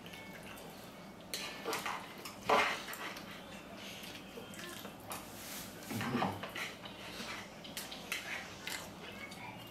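Scattered light clinks and clicks of cutlery and dishes as people eat, with a few brief, slightly louder knocks.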